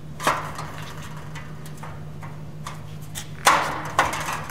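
Steel stud track knocking and scraping against the steel studs of a frame as it is slipped down over them: a sharp clank about a quarter second in, a few light ticks, and louder metal clatter near the end.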